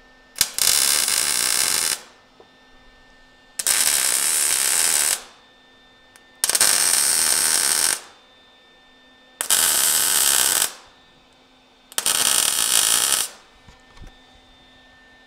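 MIG welder laying five short tack welds on steel. Each tack is about a second and a half of steady arc noise, with pauses of a second or two between them.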